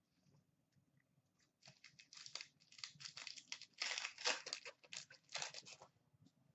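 A plastic hockey card pack wrapper being crinkled and torn open by hand, a run of dense crackling from about a second and a half in until about six seconds.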